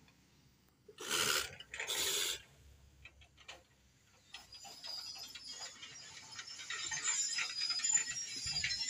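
Footsteps crunching and scraping over loose quarry rubble, with small stones clinking. There are two louder crunches about a second and two seconds in, then a run of quick small clicks and scrapes.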